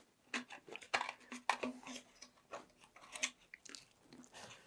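Wooden fin scraping and clicking as it is forced into a very tight fin slot in a clear plastic rocket body tube: a run of short, irregular scrapes and clicks.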